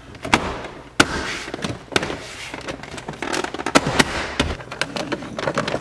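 Sharp, irregular clicks and knocks of a car's interior door-sill trim panel being pressed and thumped into its clips by hand and fist.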